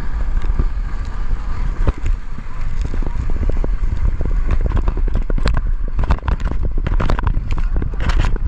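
Water splashing and a steady low rumble of wind and motion as a towed inflatable tube skims and bounces across the sea; from about five seconds in, a quick run of sharp slaps and knocks as the tube hits the waves and spray strikes the camera.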